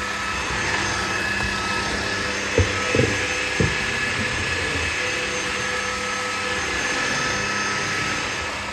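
Levoit LVAC-200 cordless stick vacuum running steadily, its motor giving a high whine over the rush of suction air. Three short knocks come about two and a half to three and a half seconds in, and the sound starts to fall away near the end.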